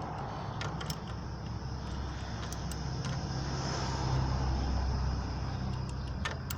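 Steady low rumble of a vehicle engine that swells around the middle, with a few faint light clicks.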